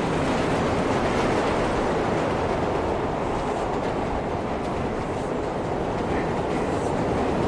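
Subway train running, heard from inside the car: a steady rumble and rattle with no clear breaks.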